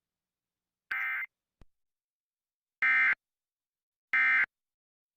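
Emergency Alert System end-of-message signal: short bursts of the SAME digital data tones, three in a row with silence between them, the first quieter than the other two. They mark the close of the required monthly test.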